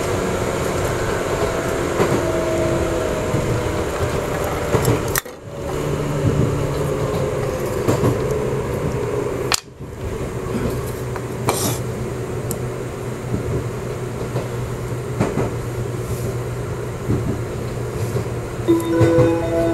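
Running noise inside a passenger car of an express electric train: a steady rumble of wheels on rail and motor hum. It drops out briefly twice, and near the end a held tone comes in over the rumble.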